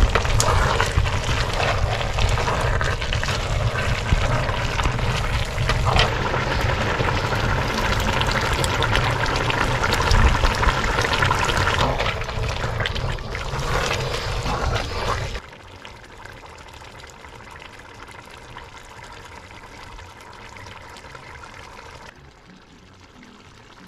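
Wet stirring of shredded cabbage and pork in a large aluminium pot with a wooden spoon, a loud sloshing, sizzling mass. About 15 seconds in the sound drops abruptly to a much quieter steady hiss.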